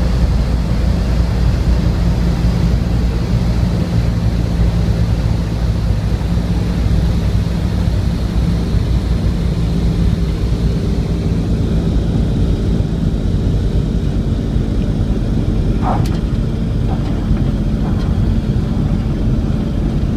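De Havilland Dragon Rapide's twin piston engines, heard from inside the cabin, running at low power in a steady drone through the landing rollout on the runway. A brief squeak sounds about sixteen seconds in.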